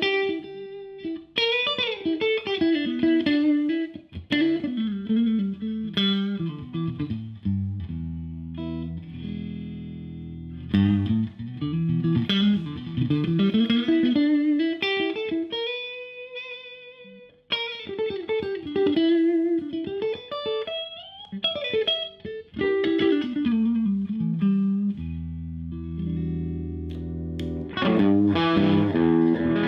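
Stratocaster-type electric guitar played through a Marshall JTM valve combo amp: a lead melody with quick falling runs and one long note held with vibrato about halfway through. Sustained low chords ring under it at several points.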